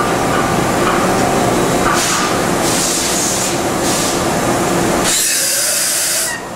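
1986 Okuma MC-50H CNC horizontal machining center running a dry-run cycle with a steady mechanical hum and whine. Its coolant sprays out in hissing bursts. The longest and loudest hiss comes near the end and cuts off suddenly.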